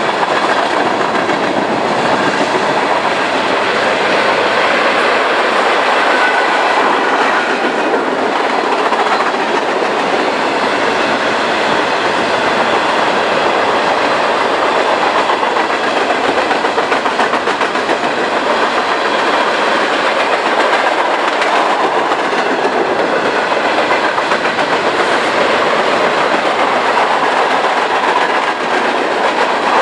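Freight cars of a mixed freight train (tank cars, gondolas and boxcars) rolling past, a steady loud rumble and clatter of steel wheels on the rails.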